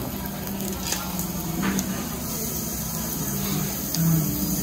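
Steady hissing noise with faint, broken voices in the background.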